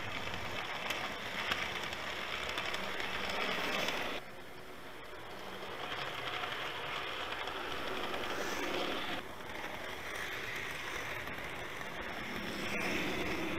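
OO gauge model trains running close by on the layout's track, led by a Lima Class 43 InterCity 125: a steady rattle and hum of wheels and motor. The sound drops abruptly about four seconds in and changes again about nine seconds in.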